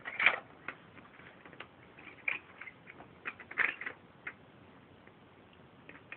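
Irregular light clicks and taps from a plastic toy box with a turning dial being handled, about a dozen over a few seconds, with a slightly louder cluster about three and a half seconds in.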